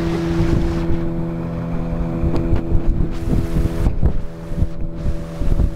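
Small boat's motor running at a steady speed, a constant engine hum, with wind buffeting the microphone.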